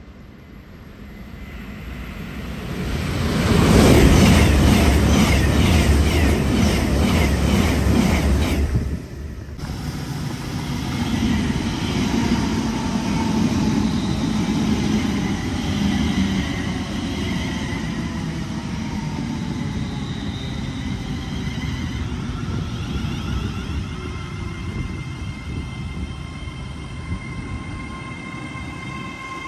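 Trains running through the station. First comes a loud rush building to a rapid, rhythmic wheel clatter, which cuts off abruptly about nine seconds in as the train clears. Then an Avanti West Coast electric train rumbles past steadily for the rest of the time, with a whine in several pitches, some of them sliding.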